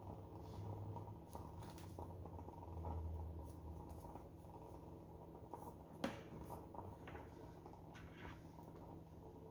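Faint rustling and light clicks of oracle cards being handled and laid down, with one sharper tap about six seconds in.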